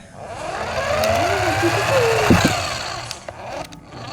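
Toy RC car's electric motor whining, its pitch climbing for about two seconds as it speeds up, then falling as it slows, and dropping away near the end.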